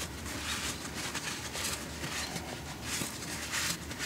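A shop towel rubbing and rustling in short irregular strokes, wiping around the oil pan's drain plug.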